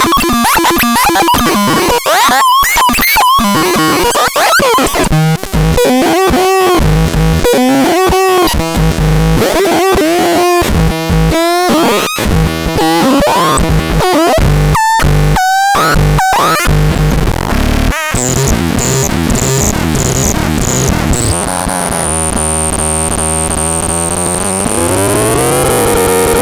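ABSURDON X1 BAX BOX electronic noise synthesizer making chaotic, glitchy tones: rapidly stuttering pitches, sweeping glides and heavy bass pulses. In the last few seconds a steady high whine holds over a slowly rising tone.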